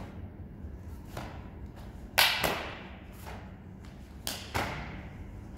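Taekwondo uniform snapping sharply with the strikes and kicks of a form, together with bare feet thudding on the foam mat. The cracks come in two close pairs, a couple of seconds apart, with softer taps between.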